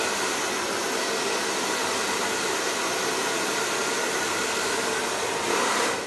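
A 2000-watt handheld hair dryer running steadily on low heat, drying damp hair: an even rush of blown air that swells slightly near the end.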